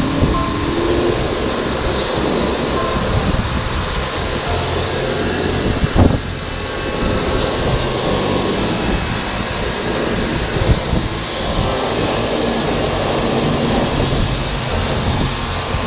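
Pressure washer running steadily, its high-pressure jet hissing against wet concrete as it strips old grime off the slab. A brief knock about six seconds in.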